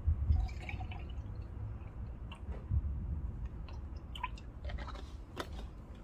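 Milk being poured from a carton into a milk pitcher, with a low rumble of handling and a few light knocks scattered through.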